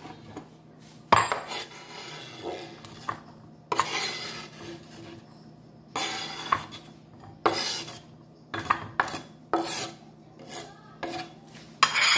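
Diced red onion being scraped across a bamboo cutting board with a knife blade and by hand, and dropped into a ceramic bowl: a run of short scraping strokes, each under about a second, with light knocks.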